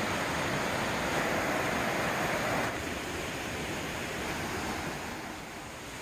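Mountain stream water rushing over rocks and boulders, a steady hiss that drops in level about two and a half seconds in and fades a little further near the end.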